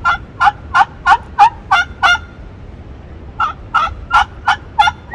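Handmade friction pot call worked with a wooden striker, playing turkey hen yelps: a run of about seven yelps at roughly three a second, a pause of about a second, then five more. Each yelp breaks from a higher note down to a lower one.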